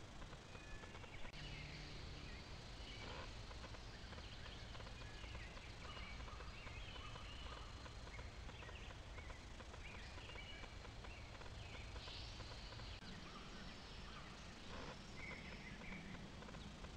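Faint scattered birdsong and chirps over the steady hiss of a trail camera's microphone.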